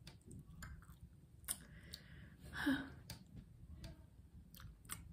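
Close-up chewing of food, with scattered small mouth clicks and a brief voiced sound about two and a half seconds in.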